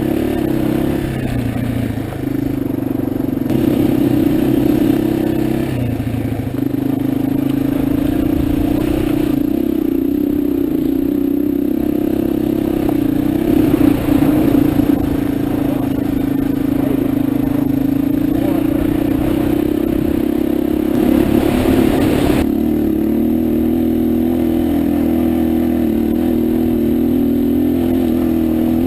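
225 cc motorcycle engine pulling under load on a steep climb, its note wavering up and down with the throttle. Some clatter and scraping from the bike working over rough ground, loudest around the middle and again near two-thirds of the way through.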